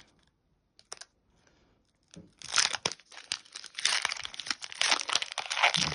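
Foil booster pack wrapper being torn open and crinkled, starting about two seconds in after a near-quiet start with a couple of faint clicks.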